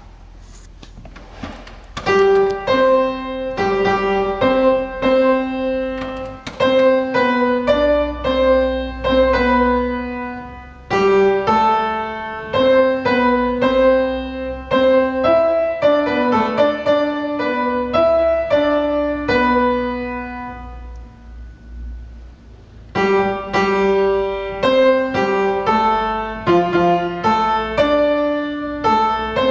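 Piano playing chords, several notes struck together and left to ring. It starts about two seconds in, fades to a brief pause about three-quarters of the way through, then picks up again.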